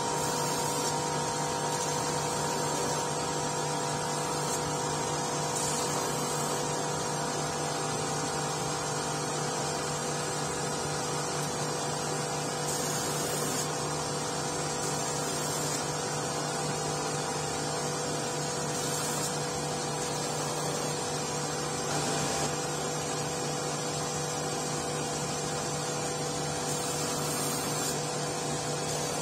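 Shoe-finishing machine running with a steady motor hum while its abrasive wheel sands down a shoe's heel and new top lift, giving a continuous grinding hiss.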